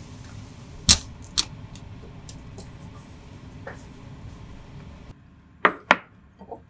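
Stir-fried cabbage, egg and ground meat sizzling steadily in a frying pan as it is tossed with a spatula, with two sharp knocks of the spatula against the pan about a second in. The sizzle then cuts off, and a ceramic plate is set down on a countertop with two sharp clacks near the end.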